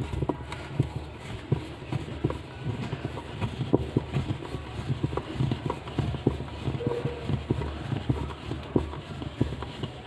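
Screwdriver tightening the centre screw of a semi-automatic washing machine's plastic pulsator: irregular sharp clicks and knocks as the tool turns and taps in the screw head, over a low handling rumble.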